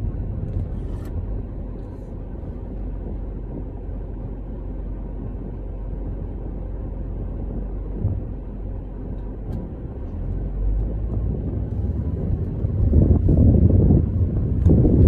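Car driving, heard from inside the cabin: a low, steady rumble of road and engine noise that grows louder about thirteen seconds in.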